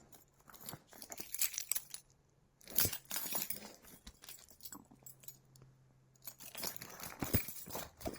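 Handling noise: irregular rustling and sharp clicks of small objects being handled, in three bursts with quieter gaps between.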